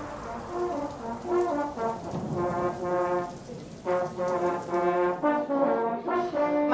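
A brass instrument playing a slow melody of held notes, starting about half a second in as a steady rain noise fades.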